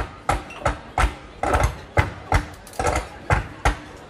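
Coopers' hammers beating on the hoops of oak barrels in a steady rhythm, about three sharp strikes a second.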